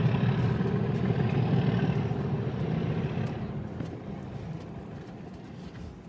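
Diesel engines of two Class 37 locomotives, English Electric V12s, running under load and fading away into the distance as the train leaves, the rumble dying down from about halfway through.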